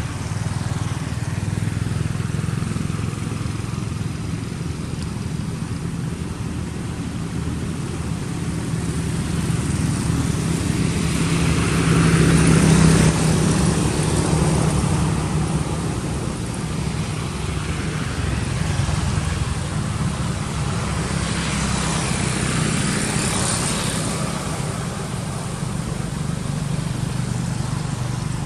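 Distant road traffic: a steady low rumble that swells about halfway through and again later on.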